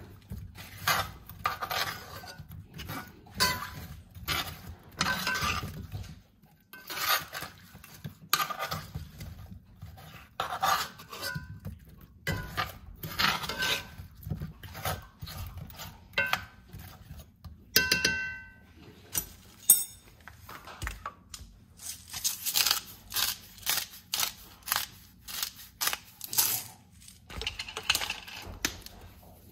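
Cut red potato chunks tossed by hand in a cast-iron skillet with oil and seasoning: irregular knocks and clatters of the pieces against the pan, with a brief ringing clink about two-thirds of the way in.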